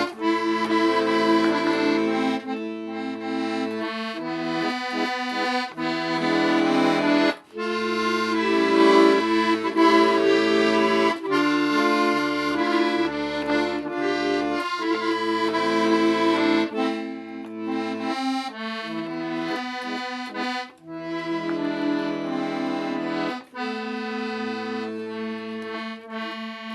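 Accordion playing a tune: sustained melody notes over low bass notes and chords that come and go, with two brief breaks between phrases.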